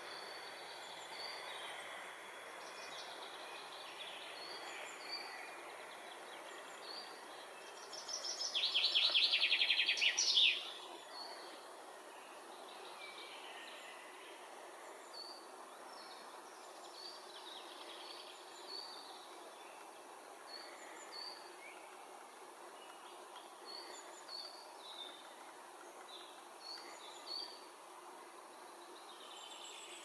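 Woodland birdsong. Short high calls from birds repeat at intervals throughout. About eight seconds in, one songbird sings loudly: a fast run of repeated notes lasting a couple of seconds and ending in a quick flourish.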